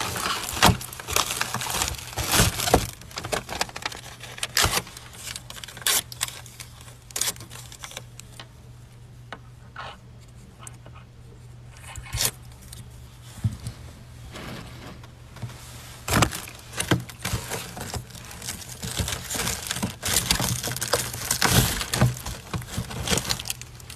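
Foil-lined insulated delivery bag crinkling and rustling as it is pulled open and handled, in irregular bursts with a quieter stretch in the middle.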